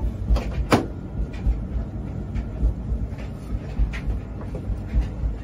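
A steady low rumble with a sharp plastic click about three quarters of a second in, as the boiler's front control box is pushed up into its clips, followed by a few faint knocks of handling.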